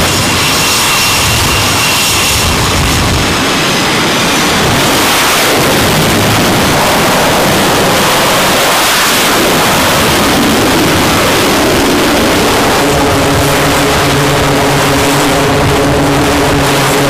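F/A-18 jet engines running loudly at high power on a carrier deck, a steady rushing noise with a high whine over it in the first few seconds. About two-thirds of the way through, the steady low hum of a twin-turboprop aircraft's eight-bladed propellers joins in and carries on to the end.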